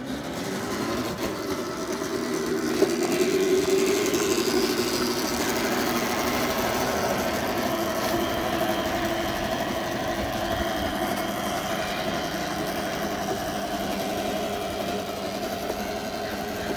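Homemade 2000-watt, 48-volt electric go-kart running along a lane: a steady motor whine over tyre and road noise, climbing a little in pitch over the first few seconds as it picks up speed.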